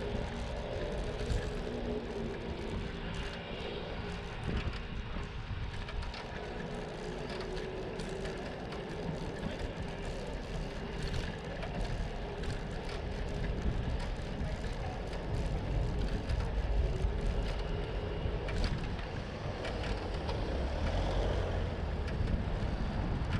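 Bicycle riding noise picked up by a handlebar-mounted GoPro: a steady rumble of wind and tyres on the road, with a run of small clicks and rattles from the bike over the paving.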